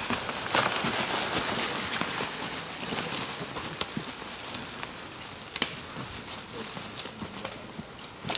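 Dry fallen leaves crunching and rustling as a deer carcass is dragged over them by rope and hunters trudge through the leaf litter. The sound fades as they move away, with one sharp crack about five and a half seconds in.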